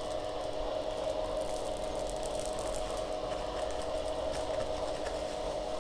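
A Becker tubular motor inside the roller shaft of a motorised clear-foil weather blind, running with a steady hum as it lowers the foil.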